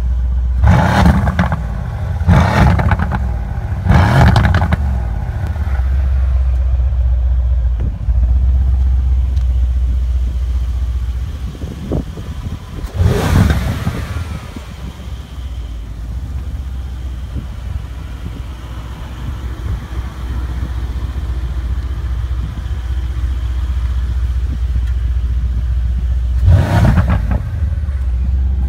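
2017 Mercedes-AMG C63 S's twin-turbo 4.0-litre V8 exhaust at a low, steady idle, revved in short blips while standing: three quick revs in the first few seconds, one around the middle, and one near the end.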